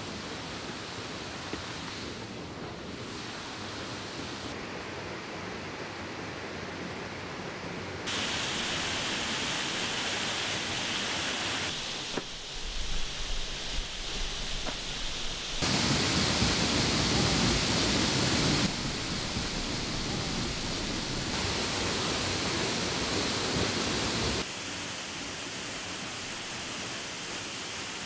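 Steady rushing of a waterfall, its loudness and tone changing abruptly several times, with some uneven bumps partway through.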